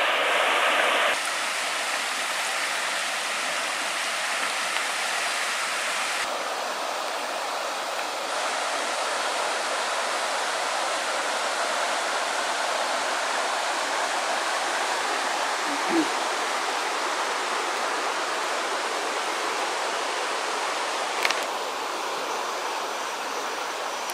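A shallow mountain trout stream running over its rocky bed, a steady rush of water that drops in level about a second in. Near the end there is one sharp click.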